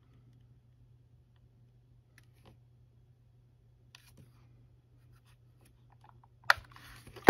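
Plastic parts of a cordless-tool battery case being handled and pressed together: a few faint ticks, then a sharp click about six and a half seconds in followed by scraping and another loud click near the end, over a steady low hum.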